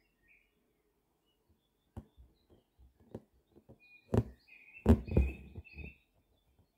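Hand-embroidery needle and thread pulled through taut cotton fabric in a wooden hoop: a run of short ticks and taps, the loudest about five seconds in. Birds chirp in the background.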